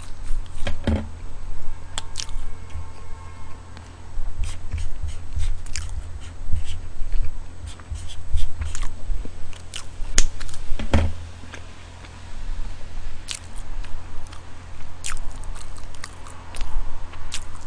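Close-miked chewing and biting, with frequent wet mouth clicks and smacks, over a steady low hum.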